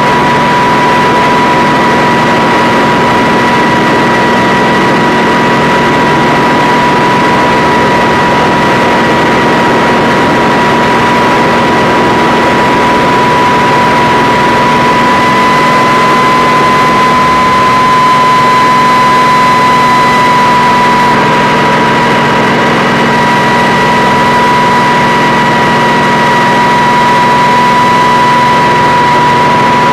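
Kamov Ka-26 helicopter running steadily, its twin radial piston engines and coaxial rotors making a loud, even drone with a high whine. The whine rises slightly in pitch a bit past halfway and settles back.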